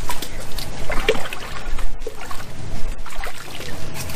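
Water trickling and sloshing in a cooler of water as bass are handled by hand, with irregular small splashes and drips.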